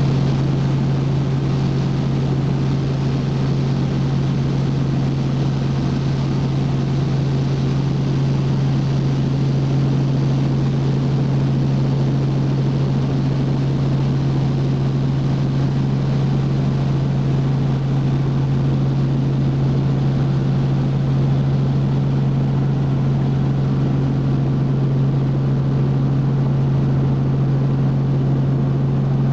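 Robinson R44 helicopter in flight, heard from inside the cabin: the steady drone of its six-cylinder piston engine and rotors, with one strong, unchanging low hum under a wash of higher noise.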